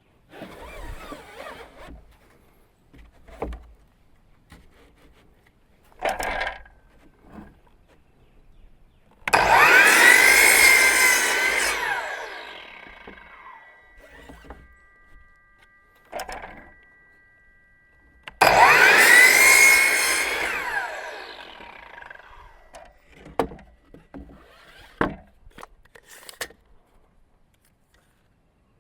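A power saw cutting painted wooden clapboard siding boards twice, about nine seconds apart. Each cut starts abruptly, and its whine rises then falls off as the blade winds down. Short knocks and clatter of boards being handled come between the cuts.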